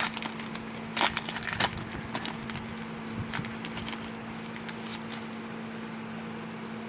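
Foil trading-card booster pack being torn open and crinkled: a burst of crackling about a second in, then lighter scattered crinkles and clicks that die away after about five seconds.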